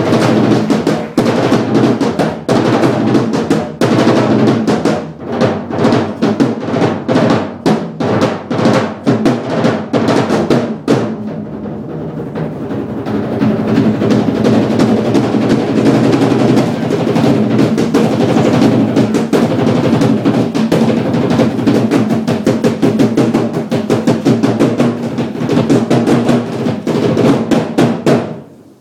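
Live stage-show drumming: fast, dense percussion with rapid strikes that eases briefly about twelve seconds in, builds back up, and cuts off abruptly near the end.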